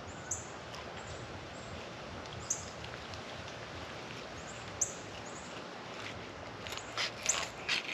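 Steady outdoor background with a few brief high bird chirps, then, near the end, a quick run of short crackling scrapes as a fillet knife cuts through a mangrove snapper's scaled skin.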